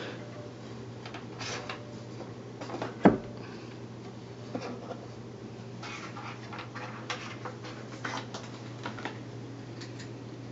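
Scattered light taps and clicks of a cat's paw working in the holes of a wooden treat-hunting platform, with one sharper knock about three seconds in. A steady low hum runs underneath.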